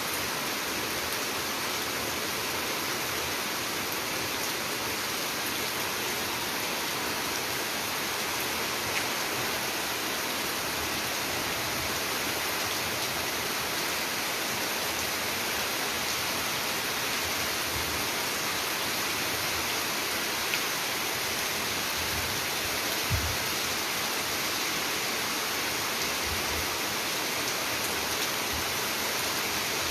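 Rain falling steadily, a dense even hiss, with a few faint low thumps.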